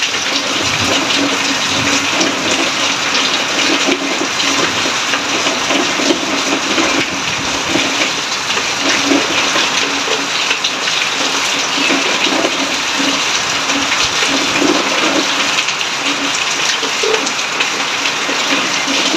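Heavy rain falling and water pouring off a roof edge onto wet concrete: a steady rushing splash.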